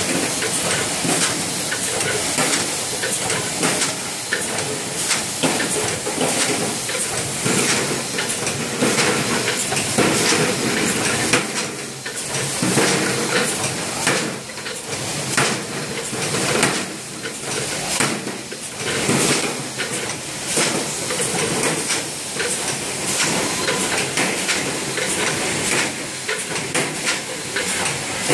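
LH ZSY1 fully automatic bottle and tube screen printing machine running through its print cycles, with a steady hiss and rapid, irregular clicking and clattering from its moving parts.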